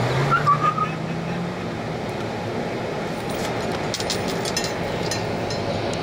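Steady outdoor background noise with a low hum that rises slightly in pitch and fades out within the first second and a half, and a few faint sharp clicks and clinks near the middle.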